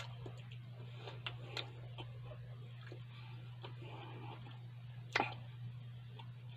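Close-up chewing of ham on bread with the mouth closed: irregular wet mouth clicks, one louder smack about five seconds in, over a steady low hum.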